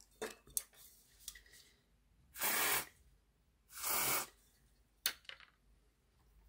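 Two short blasts of aerosol contact cleaner through a straw nozzle, each about half a second long, cleaning a model locomotive's wire pickup. A few small clicks of handling come before and after.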